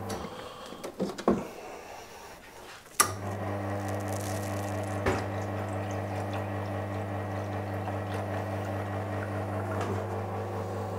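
Espresso machine pump switched on with a click about three seconds in, then humming steadily as a double shot brews. A few light knocks come before it, and a single clink about two seconds after it starts.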